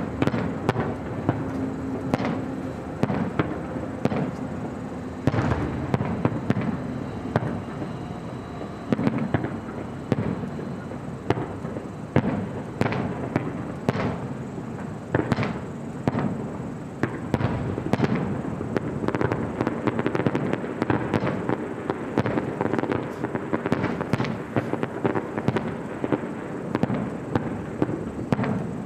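Aerial fireworks going off in a dense, continuous barrage, sharp bangs and crackles every fraction of a second with rumbling echo between them.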